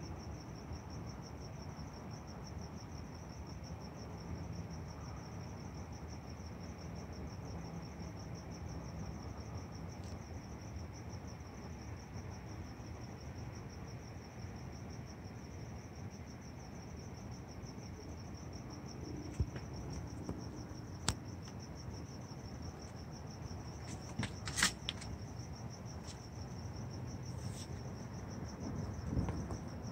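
Crickets chirping in a steady, fast-pulsing high trill over a low background haze of noise, with a few sharp clicks in the second half.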